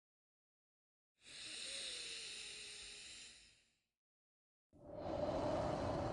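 Slow, paced human breathing: a hissy, airy breath from about a second in that fades after two and a half seconds, a pause of dead silence, then a fuller, lower-pitched breath starting near the end.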